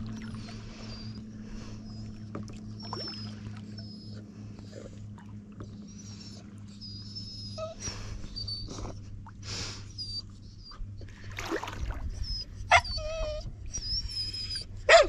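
A dog whining and whimpering in thin, high, wavering cries, over and over, with two louder, sharp cries in the last few seconds.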